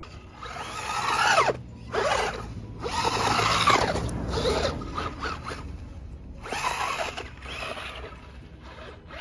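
RC buggy's original Mabuchi brushed electric motor and rebuilt gearbox whining in about seven short bursts as the throttle is blipped, the pitch sweeping up and falling away with each burst.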